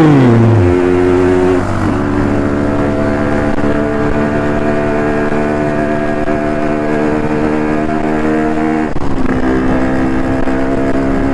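Two-stroke Yamaha RX-King motorcycle engine running steadily at cruising speed. Its note holds one pitch, shifting briefly about two seconds in and again about nine seconds in.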